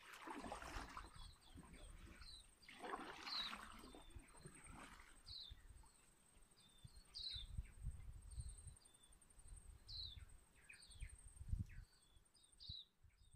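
Small birds calling with short, repeated chirps that fall in pitch. There are two soft washes of water, near the start and about three to five seconds in, from a kayak paddle dipping and stroking.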